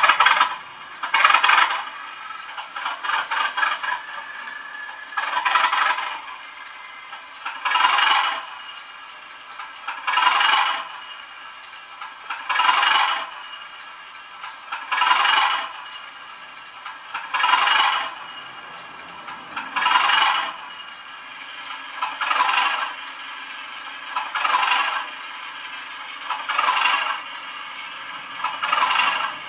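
Model diesel locomotive's LokSound v5 Class 37 sound decoder playing a metallic rattling sound effect through the model's small speaker, repeating about once every two and a half seconds.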